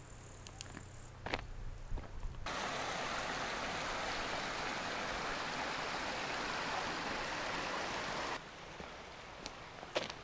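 A steady rush of flowing water cuts in abruptly about two and a half seconds in and cuts off abruptly shortly after eight seconds. A few sharp clicks come before it and one near the end.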